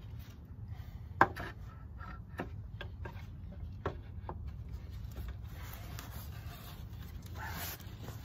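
Wooden parts of a Skagerak teak plank chair being worked together by hand: wood rubbing and scraping on wood, with scattered sharp clicks and one louder knock about a second in, as a tight-fitting joint is forced into line.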